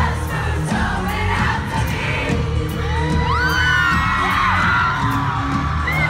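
Live pop band playing loud with a heavy low end and singing, recorded on a phone from within the audience. About halfway through, several fans scream and whoop over the music.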